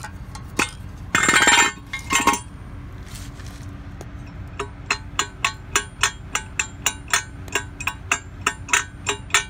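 A short metallic clatter of hand tools, then a run of sharp clicks, about three a second, as a diesel turbocharger's shaft is rocked back and forth by its compressor-wheel nut to check for play.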